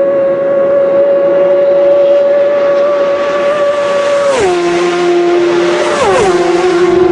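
Racing motorcycle engine running at high revs with a steady note, then its pitch steps sharply down twice, about four and a half and six seconds in.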